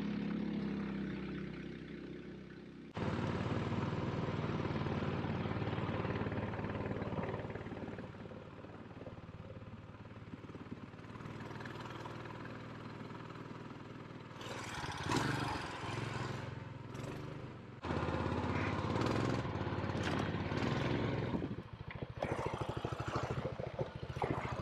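Small gas engine of a long-tail mud motor running steadily as it drives a canoe, with bursts of rushing water along the hull.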